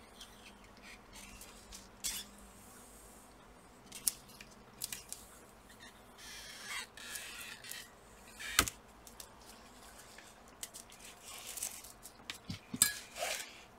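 Gloved hands working at a laptop's display panel to free the fixing strip that holds it in the lid: scattered light clicks and scrapes, a brief rustle about halfway, and a sharper click soon after.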